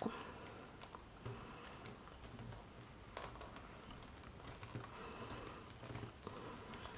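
Faint, irregular little clicks and crinkles of damp rolled-newspaper tubes being bent and pressed around a woven handle by hand.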